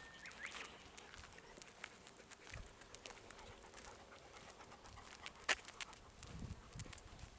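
Golden retriever panting quietly, with scattered light clicks and one sharper click about five and a half seconds in.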